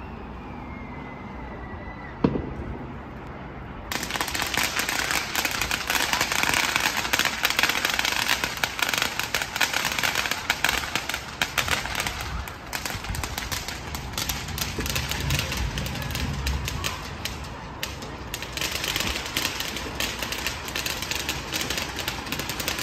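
Heavy thunderstorm rain pattering and crackling close by, a dense hiss of many fine drop hits that starts suddenly about four seconds in, after a single sharp knock.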